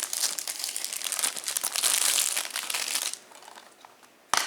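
Plastic wrapping crinkling and tearing as it is pulled off a Blu-ray case, dense for about three seconds. It then goes quieter, and there is one sharp click near the end.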